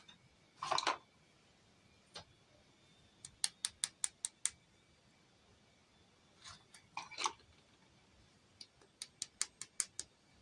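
Close hand-handling sounds: two brief rustles, and two quick runs of small sharp clicks, about six a second.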